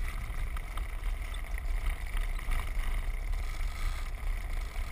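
Wind buffeting the GoPro's microphone on a moving land yacht: a continuous, fluctuating low rumble with a faint hiss above it.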